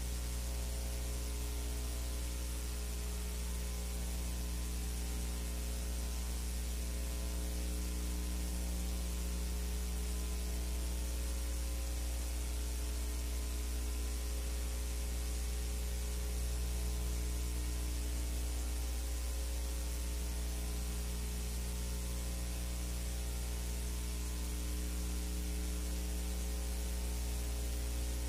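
Steady electrical mains hum with its overtones, under a constant hiss: the empty soundtrack of a silent-film transfer, with no other sound.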